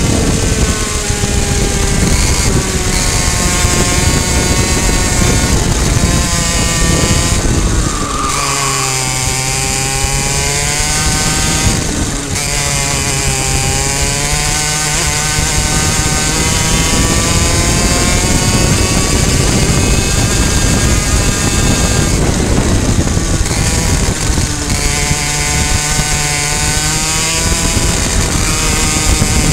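Two-stroke racing kart engine at high revs, its pitch falling sharply under braking into corners and climbing again as the throttle opens, several times over.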